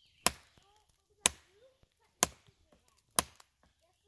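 Survival knife blade chopping into a small standing tree trunk: four solid whacks, about one a second, each a sharp knock that dies away quickly.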